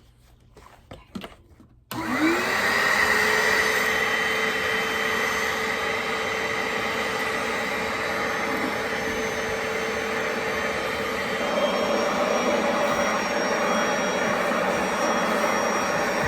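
A vacuum cleaner motor switches on about two seconds in, its pitch rising quickly as it spins up, then runs steadily; its tone shifts slightly about eleven seconds in.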